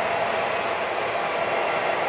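A long O gauge model freight train running on track behind MTH Premier diesel locomotives: a steady rolling rumble of wheels on rails with a constant hum.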